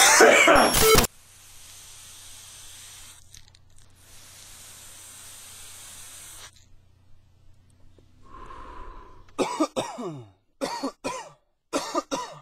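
A man coughing hard for about a second after a hit from an HHC disposable vape. This is followed by a faint steady hiss, then near the end several short electronic bursts with falling pitch.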